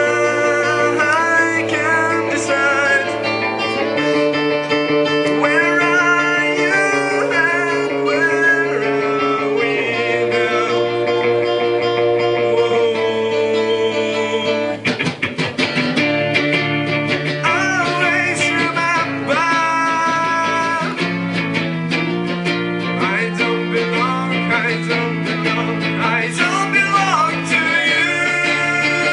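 Live band song: a strummed acoustic guitar and a man singing over held chords that change every couple of seconds, with a run of sharp, fast strums about halfway through.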